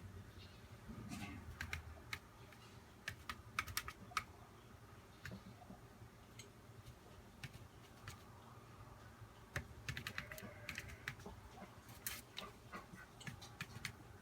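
Light, irregular clicks and taps that come singly or in small quick clusters, with no calls in between.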